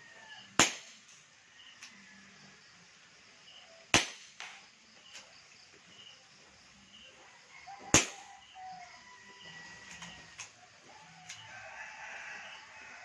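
WinGun Revolver Sports 708 CO2-powered airsoft revolver firing three single shots about four seconds apart, each one sharp and sudden.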